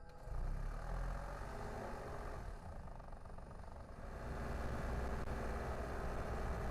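Car driving on the road: a steady rumble of engine and road noise that comes in right at the start, eases slightly and grows louder about four seconds in.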